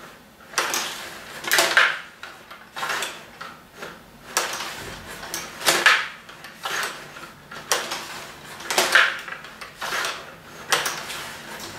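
Table-hockey game being played: sharp plastic clacks and rattles of the puck against the players' sticks and the boards, and of the rods and players being pushed and twisted, about once a second.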